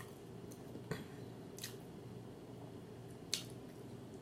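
Mouth smacking while chewing a cheeseburger: a few short, sharp wet smacks and clicks, about one, one and a half, and three seconds in, over a low steady hum.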